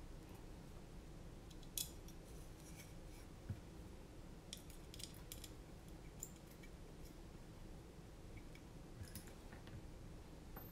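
Faint, scattered clicks and clacks of carbon-fibre drone-frame parts, standoffs and small screws being handled and fitted by hand, over a steady low hum.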